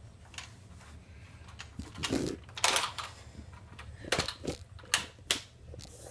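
A handful of irregular plastic clicks and knocks from handling a Nerf Rival blaster as it is loaded and primed, the loudest about two to three seconds in.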